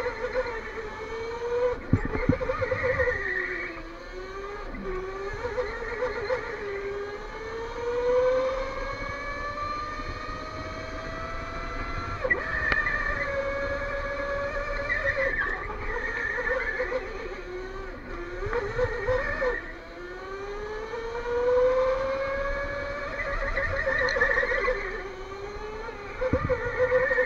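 Electric go-kart motor whining, its pitch rising and falling again and again as the kart speeds up and slows down around the track. A few sharp knocks: one about two seconds in, one near the middle and one near the end.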